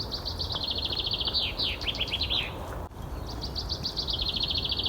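Common chaffinch singing: two songs, each a rapid run of repeated notes that slows into a few falling notes at the end, the second starting about three seconds in. A steady low rumble of background noise underneath.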